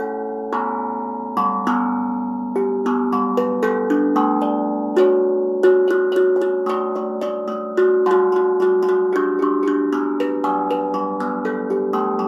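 BeatRise 13-inch, 15-note carbon-steel tongue drum struck with mallets, random notes ringing on and overlapping, with no set tune. The strikes come about once a second at first, then several a second from about three seconds in.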